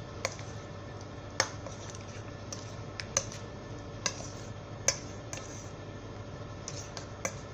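Chicken wings being mixed by hand in their marinade in a stainless steel bowl. There is soft squishing and about seven sharp, irregular clicks of the pieces and hand against the metal bowl.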